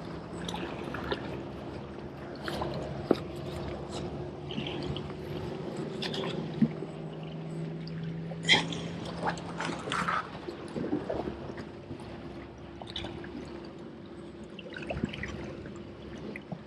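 Seawater washing and splashing among rocks at the water's edge, with a few sharp knocks.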